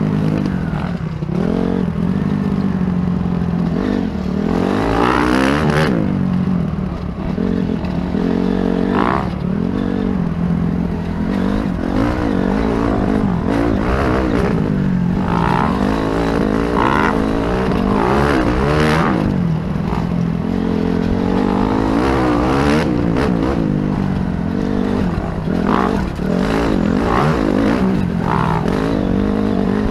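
Dirt bike engine heard from a helmet-mounted camera, revving up and down over and over as the throttle opens and closes through the track's jumps and turns.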